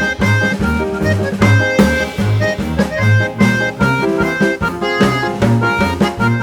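Background music: an upbeat instrumental with a reedy, accordion-like lead melody over a steady bass and drum beat.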